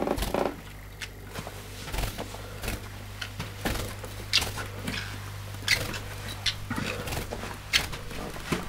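A parrotlet hopping about on carpeted stairs: irregular small taps and sharp clicks, a few each second, over a steady low hum.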